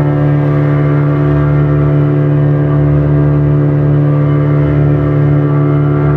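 Motorboat engine running at a steady speed, a constant droning hum with a fluttering low rumble under it.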